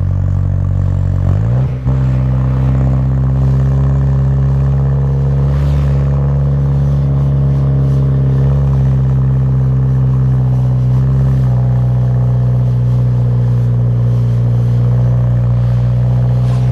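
Turbocharged 2.0-litre four-cylinder of a Mk6 Jetta GLI running through an aftermarket downpipe and cat-back exhaust, a steady low drone. The pitch steps up slightly about two seconds in, then holds even.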